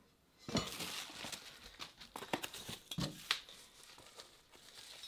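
Plastic packaging bag crinkling and rustling as a small bagged part is handled and lifted out of a foam-packed box, with a few light knocks, the clearest about half a second in and about three seconds in.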